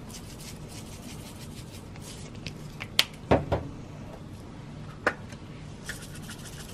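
Dried seasoning being shaken from plastic spice containers into a saucepan of water: quick faint rattling shakes, with a few sharp knocks about three seconds in and one more near five seconds, over a low steady hum.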